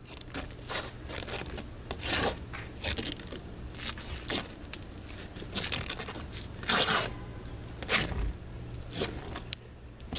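A brush scraping and dabbing thick roofing cement onto roof underlayment in irregular strokes, a few of them louder, over a faint steady low hum.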